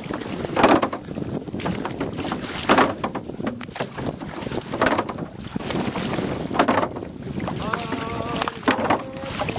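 Canoe paddles stroking through the water in an even rhythm, a splash about every two seconds, with wind buffeting the microphone.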